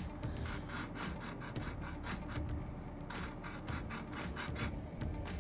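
Diamond file, coarse side, scraped by hand in quick back-and-forth strokes across the flat-mount brake boss of a carbon bike frame. It is rasping off the excess paint to bare the alloy mounting surface and make it flat.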